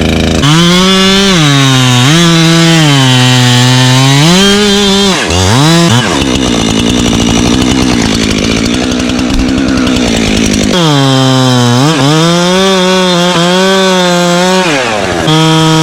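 Husqvarna two-stroke chainsaw running at high revs and cutting wood. Its pitch repeatedly sags and climbs back as the chain bites, with a lower, rougher-sounding stretch in the middle before it revs up again.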